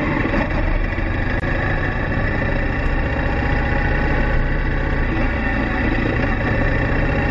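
Motorcycle engines running steadily at low speed, a continuous, even drone with no break.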